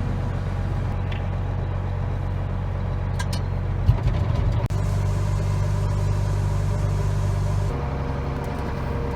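Road vehicle driving, a steady low engine hum heard from inside the vehicle. There is a sharp knock about four seconds in, and the engine note shifts twice in the second half.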